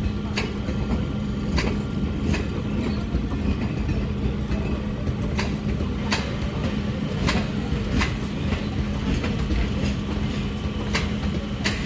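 Passenger train coaches rolling past on an arrival: a steady rumble and low hum, with sharp irregular wheel clicks as the wheels cross rail joints.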